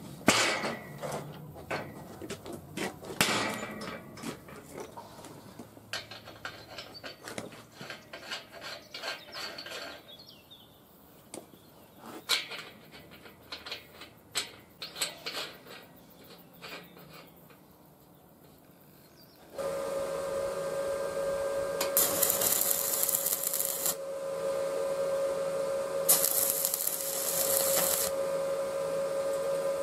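Steel clanks, knocks and scraping as the welding-table frame is handled and its caster fittings are worked by hand. About twenty seconds in, a steady electrical hum sets in, and the stick-welding arc crackles and sizzles in three short runs of tack welds on the steel frame.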